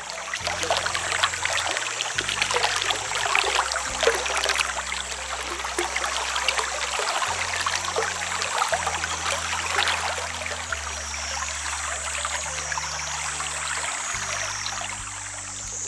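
Water trickling and splashing in a dense crackle of small splashes.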